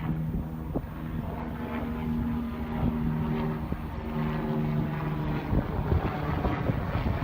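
An engine running at a steady pitch over a low rumble, with a few short knocks.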